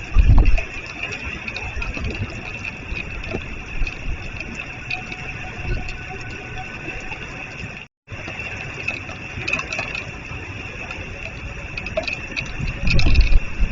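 Strong storm winds buffeting the microphone in gusts over a steady hiss, with a heavy gust hitting near the end. The sound cuts out completely for a moment about eight seconds in.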